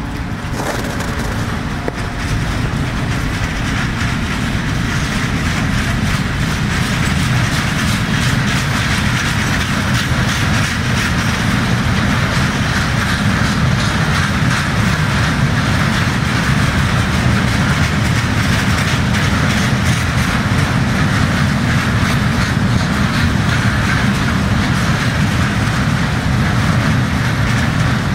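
Freight wagons loaded with ballast rolling past, their wheels clattering steadily over the rail joints, slowly growing louder.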